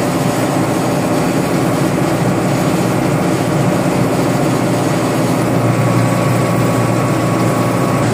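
Steady drone inside a truck cab while cruising: diesel engine hum under a constant hiss of tyres on wet asphalt.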